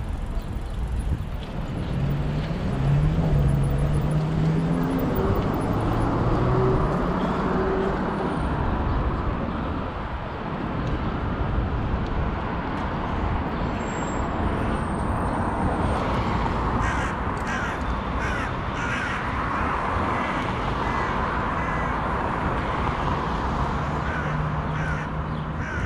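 City street noise from a moving bicycle: steady wind and traffic rush, with a low engine hum loudest in the first several seconds.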